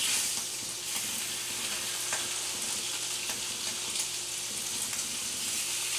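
Bone-in beef short ribs searing in butter in a cast iron skillet on high heat: a steady frying sizzle with a few small pops.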